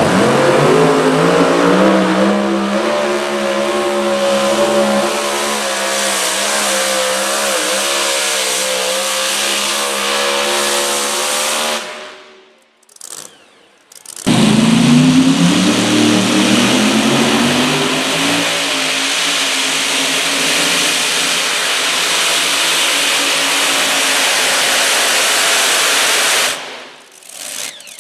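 Supercharged engines of modified two-wheel-drive pulling trucks run at full throttle dragging the pulling sled, the pitch climbing and then holding high. The sound breaks off suddenly about twelve seconds in, and about two seconds later a second truck's run starts, climbing again and holding until it fades near the end.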